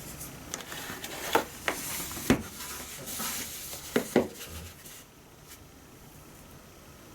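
Handling noise: a few sharp clicks and knocks with some rubbing between them, then two quick clicks about four seconds in, after which it goes quieter.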